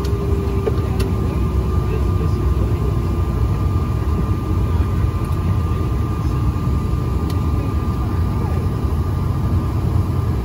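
Cabin noise of a Bombardier CRJ-900's rear-mounted turbofan engines at idle while taxiing: a steady low rumble with a thin, constant whine above it.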